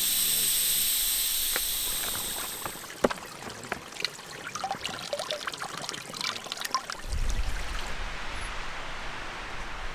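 Air hissing steadily through the valve of an inflatable sleeping pad, stopping about three seconds in. Then water trickles and drips from a rock seep into a crinkling plastic water bag. From about seven seconds a low rumble of wind on the microphone takes over.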